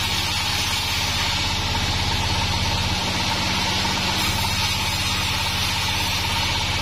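Large vertical log band saw running steadily as a log on the carriage is fed through the blade: a constant low machine hum with a thin whine and a hiss of sawing above it.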